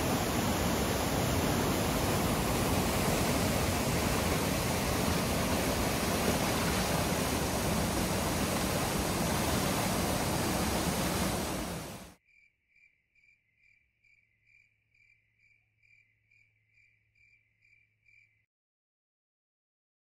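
Loud, steady rush of a white-water river in rapids, cutting off suddenly about twelve seconds in. A faint insect chirp follows, repeating about twice a second, and it stops shortly before the end.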